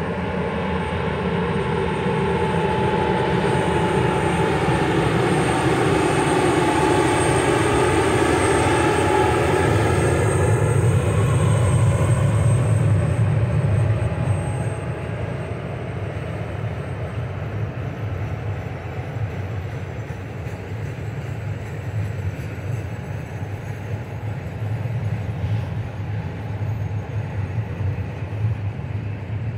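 ST48 diesel locomotive at the head of a container freight train passing close by, its engine note in several tones bending up and then down as it goes by. About halfway through the engine sound drops away and the steady rumble of the container wagons rolling past takes over.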